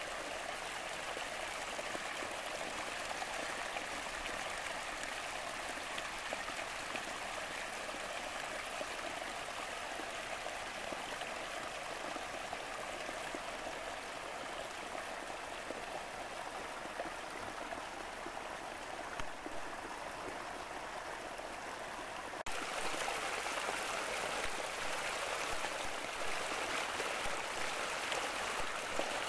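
A small trickle of rain run-off splashing down a steep, leaf-strewn bank over stones, a steady close trickling rush. About three quarters of the way through it jumps suddenly louder and brighter as it is heard closer to the splash.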